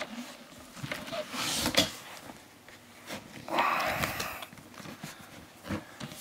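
Handling noises from a large cardboard toy box being moved and rubbed: a rushing scrape, a sharp knock about two seconds in, then a longer rubbing rush near the middle.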